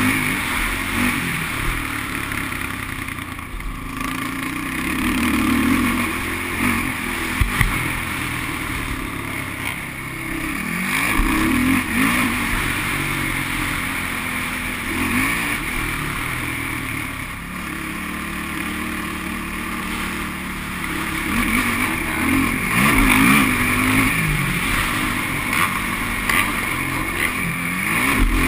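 Sport quad (ATV) engine revving up and dropping back over and over as it is ridden hard through the corners and straights of a dirt motocross track, with a sharp knock about seven seconds in.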